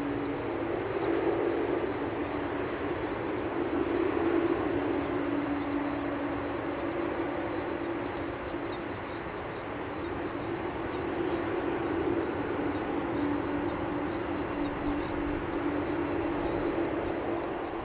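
Boeing 777-281 airliner's twin jet engines running at taxi power: a steady hum with a low held tone that swells, eases and swells again as the jet turns to line up. Faint high chirps repeat a few times a second above it.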